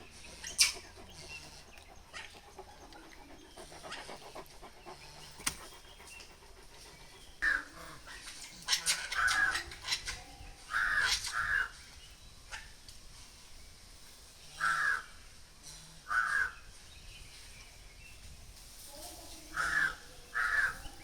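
Short harsh animal calls, often in quick pairs, coming at irregular intervals, with a few sharp knocks in between.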